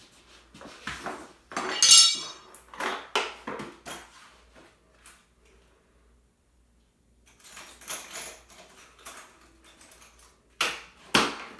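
Metal tools and drill bits clinking and clattering as they are handled and rummaged through, with one louder ringing clank about two seconds in and a short pause around the middle.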